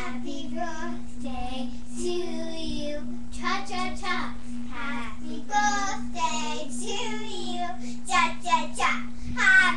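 Two young girls singing a birthday song together, with a steady hum underneath.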